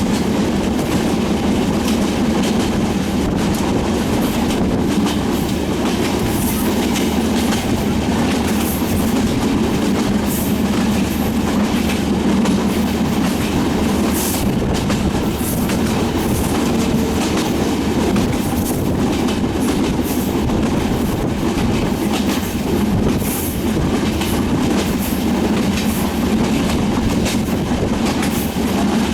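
Sundarban Express passenger train running on the rails: a steady loud rumble with irregular clattering and clicking of wheels over the track.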